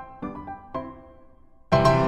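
Background music: single struck notes about twice a second, each fading away, then a loud full chord near the end.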